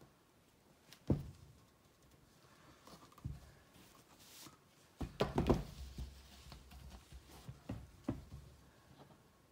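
Stretched canvas being tilted and set down on a paper-covered table: a handful of soft knocks and thumps, with a cluster of them a little past the middle, and a brief rustle of the table covering.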